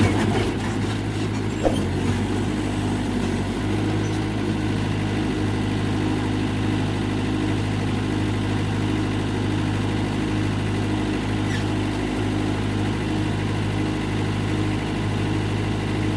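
Diesel engine of a Mitsubishi tracked backhoe running steadily with a constant low hum.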